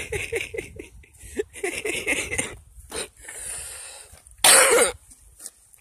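A man coughs once, loudly, about four and a half seconds in. Before that, a run of light knocks and scuffs fades out over the first couple of seconds.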